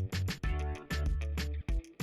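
Background music with a steady beat, strong bass and guitar.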